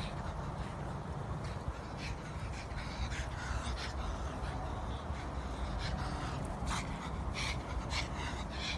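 Short, sharp animal calls at irregular intervals, over a low steady rumble.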